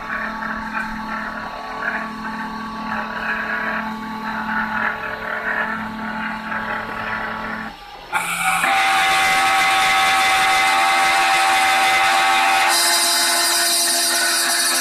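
CNC milling machine's end mill cutting acrylic sheet: a steady spindle whine mixed with the hiss and chatter of the cut. About eight seconds in the sound dips briefly as the tool moves to a new spot, then resumes louder and brighter, and brightens again near the end.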